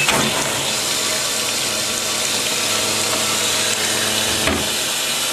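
Portable top-loading washing machine just started, water rushing steadily into the tub as it begins to fill.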